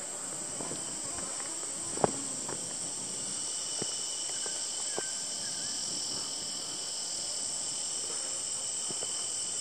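A steady, high-pitched chorus of insects, with a sharp click about two seconds in.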